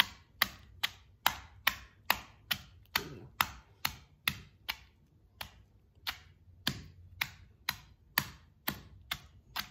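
Wooden pestle pounding raw tamarind with rock salt and turmeric in a stone mortar: steady, even strokes about two a second, each a sharp knock of the pestle into the mash. The tamarind is being crushed so its flesh comes away from the seeds for tamarind pickle.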